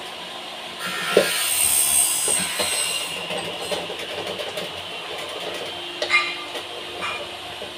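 Popcorn machine's kettle tipped to dump a fresh batch: popcorn rattling and spilling out with metal clattering, loudest between about one and three seconds in, and a few sharp clanks near the end.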